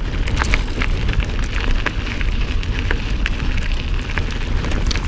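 Mountain bike rolling over a dry, stony dirt trail: tyres crunching on loose gravel and the bike rattling with many small clicks and crackles, over a steady low rumble of wind on the microphone.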